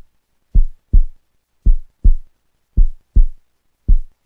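A heartbeat sound effect: four deep double thumps, lub-dub, about one a second, with silence between them.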